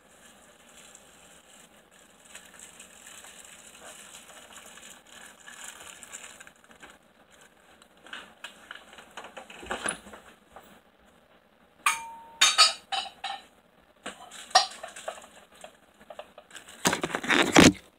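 Faint room noise, then several sharp clinks and knocks from about two-thirds of the way in, one with a brief ringing tone. Near the end comes loud rustling handling noise as a person comes right up to the camera.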